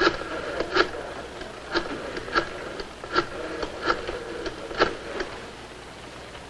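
Rotary telephone being dialed: the dial is pulled round and let go several times, giving a run of sharp clicks about half a second to a second apart over the first five seconds.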